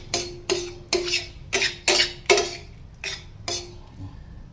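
A metal utensil knocking and scraping against a metal pan about eight times, each stroke ringing briefly, as the scrambled eggs are worked out of the pan.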